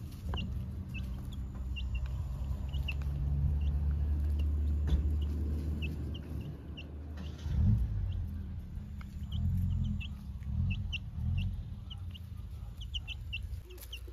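Young domestic chicks peeping: many short, high, falling cheeps scattered throughout. Underneath is a loud low rumble, steady for the first half, then breaking into uneven surges.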